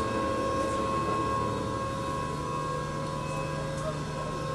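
Passenger boat's engine running steadily, heard inside the enclosed cabin: a steady drone with a thin high whine, and a lower hum that comes in about two seconds in.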